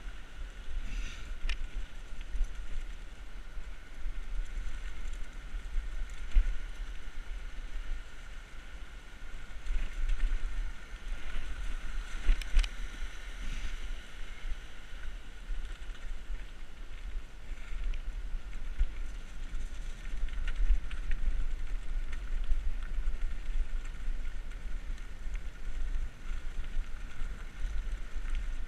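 Bicycle riding over a rough earth path: a steady low rumble of wind buffeting the camera microphone, with scattered clicks and jolts from the bike bumping over the ground.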